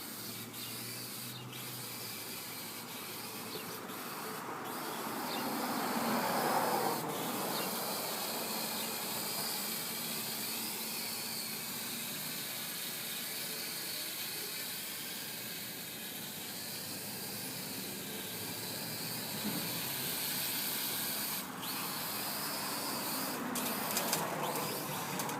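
Multicopter's electric motors and propellers whirring steadily in flight, with a wavering pitch and a swell in loudness about six seconds in.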